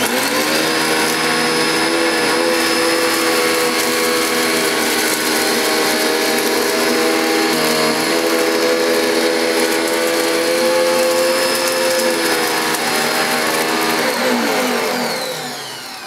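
Panasonic MC-E47 bagged upright vacuum cleaner switched on and running steadily on carpet, cleaning along the edge against the skirting board, with a brief pitch rise as the motor spins up. About two seconds before the end it is switched off, and the motor winds down with a falling pitch.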